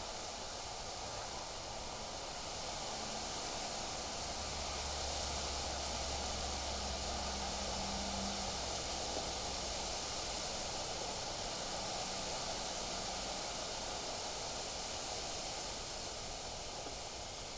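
Steady hiss of wind through trees and rustling leaves. A low hum comes in about four seconds in and fades out by about ten seconds.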